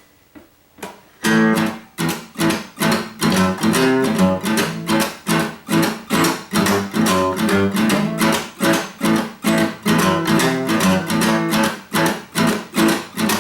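Acoustic guitar strumming a blues rhythm, steady strokes about two a second with changing chords, starting after about a second of near silence.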